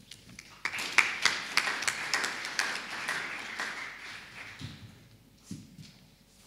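Audience applauding, the clapping starting under a second in and dying away over the next four seconds or so. A couple of low thuds near the end.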